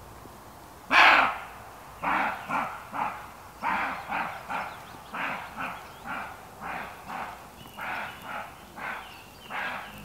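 Deer barking: one loud bark about a second in, then a long run of shorter, softer barks, about two a second.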